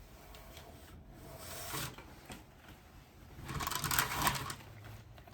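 Rustling and crinkling as the dress and its packaging are handled, rising twice: briefly about a second and a half in, and louder around four seconds in.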